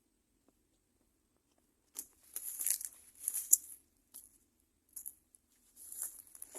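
Crinkling, rustling handling noise in several short bursts, the loudest about a third of the way in, with a few sharp crackles among them.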